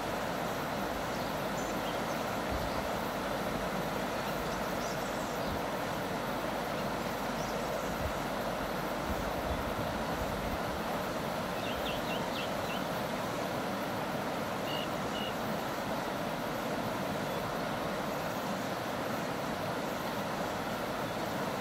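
Ohau River flowing steadily, a continuous even rush of water.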